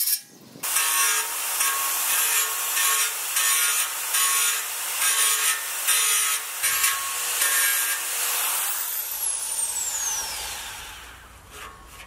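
Narrow belt file sander grinding a steel weld bead on a door-frame repair panel, pressed on in rhythmic strokes about every half second: the bead is being ground down flush. Near the end its whine falls away as it runs down and the sound fades.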